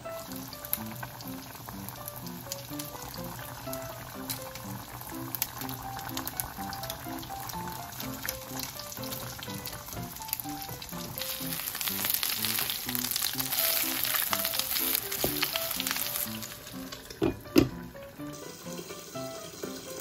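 Hamburg steak patties sizzling in a frying pan, the sizzle growing louder for several seconds past the middle, under soft background music. A sharp knock comes near the end, and then the sizzling stops.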